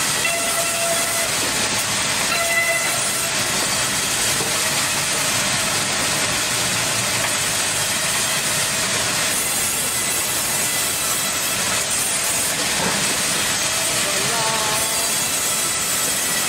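Large vertical band sawmill running and ripping a log into slabs: a loud, steady hissing rush of the blade through the wood, with a faint whine underneath.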